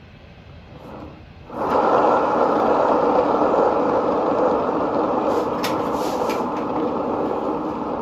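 A paint-pouring spinner whirring as it turns a canvas board, starting suddenly about a second and a half in and slowly easing off a little, with a couple of faint clicks midway.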